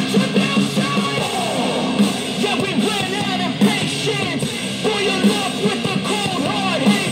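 A rock song with singing over a steady beat, played from an MP3 player through a homemade TDA2822 amplifier and a pair of small speakers.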